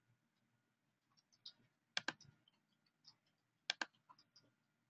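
Computer mouse clicks: two sharp click pairs, each a quick press and release, one about two seconds in and one near four seconds, with a few faint ticks between.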